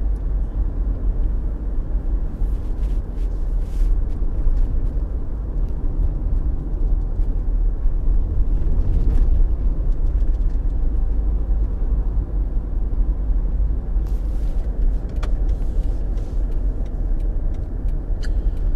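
A car driving along a road: a steady, loud low rumble of engine and tyre noise.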